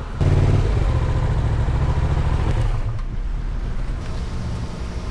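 Motorcycle running along the road, a steady low rumble that cuts in abruptly just after the start and eases slightly partway through.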